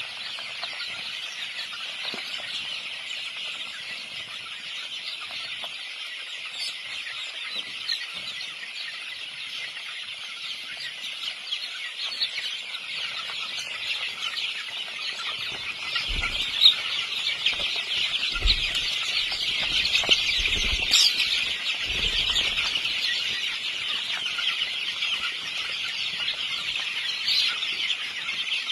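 A dense, continuous chatter of many birds calling at once, with clucking fowl among them, growing louder past the middle. A few low thumps come in the second half.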